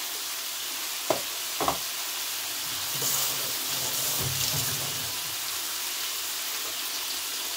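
Fish deep-frying in a pot of hot oil: a steady sizzle. Two sharp knocks come about a second in.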